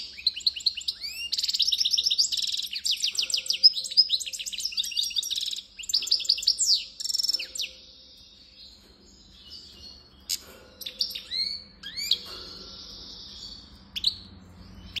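European goldfinch singing: a fast, dense run of twittering, sliding notes for the first seven seconds or so, then quieter spells broken by a few scattered calls and short phrases.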